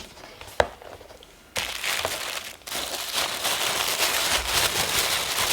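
A single click about half a second in, then from about a second and a half in, tissue paper rustling and crinkling continuously as it is handled and unfolded in an opened stationery box.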